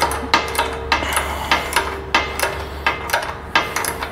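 Hand socket ratchet clicking in short, irregular strokes as bolts on a roof-rack load-bar clamp are tightened: sharp metallic clicks about two or three a second. A steady low hum runs underneath.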